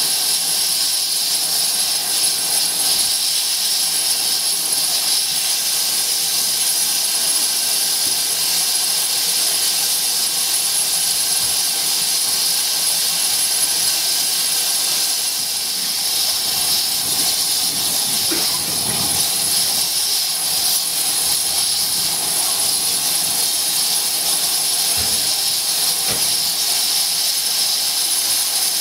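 Steam locomotive venting steam: a steady, unbroken hiss with no exhaust beat.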